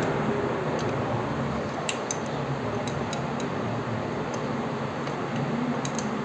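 Scattered light metallic clicks and ticks of hand tools and small parts while a timing chain tensioner is fitted and bolted onto a motorcycle engine, over a steady background hiss.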